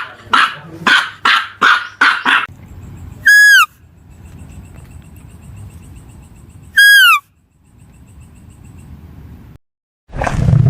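A dog barking rapidly, about three barks a second, stops after about two seconds. Two loud, short, high whistled animal calls follow, each falling in pitch, about three and a half seconds apart, with faint ticking between them. Near the end a loud, low, steady sound starts abruptly.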